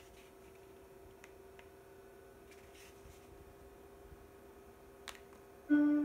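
ViewSonic X10-4K LED projector's cooling fan running with a quiet, steady hum, a few faint clicks over it. Near the end, loud piano music starts suddenly.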